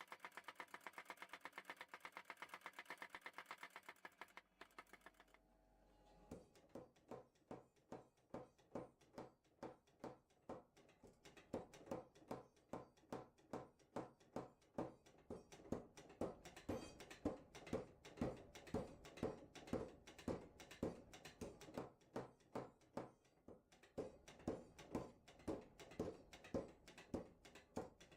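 Forging hammer striking a steel chisel blank on an anvil in a steady rhythm of about two blows a second, each with a short ring. Before the blows start there are about four seconds of rapid, dense ticking.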